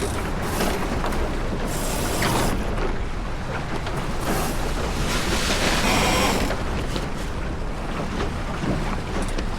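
Wind and water noise aboard a small sailboat under way, with two louder bursts of high rushing noise, about two seconds in and again from about four to six and a half seconds in.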